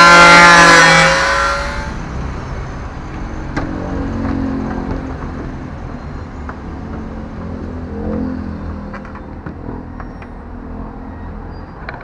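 Small handheld angle grinder whining at full speed, then switched off and winding down over the first couple of seconds. After that come only faint knocks and rubbing as the plastic washing-machine top panel is handled.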